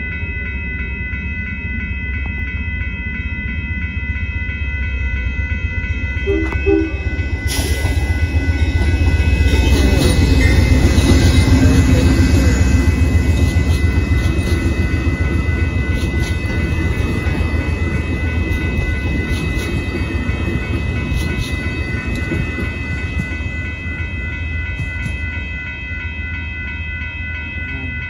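Amtrak passenger train passing over a grade crossing, its rumble building to a peak about eleven seconds in and then fading. A crossing warning bell rings steadily throughout.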